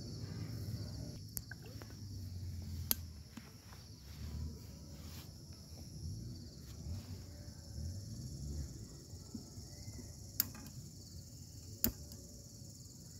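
Crickets chirping steadily in the background, with a few sharp clicks of metal camp cookware being handled.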